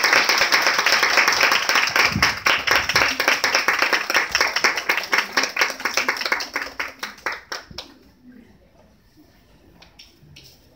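Small audience applauding, dying away about seven or eight seconds in with a few last scattered claps.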